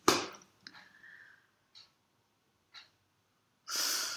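A person's sharp, noisy breath out, then near the end a breath drawn in, with faint short ticks about once a second in between.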